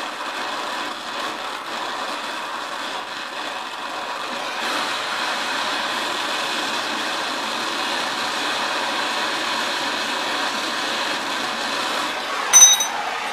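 Oxyacetylene torch flame hissing steadily as it heats a steel rod in a bending jig, a little louder after about four seconds. Near the end, a single sharp metallic clink with a brief ring.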